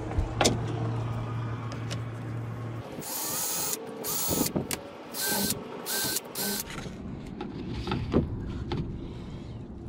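Power drill run in five short bursts with a motor whine, fastening a hook to a boat's cabin wall. A steady low hum stops about three seconds in, and there are a few light knocks.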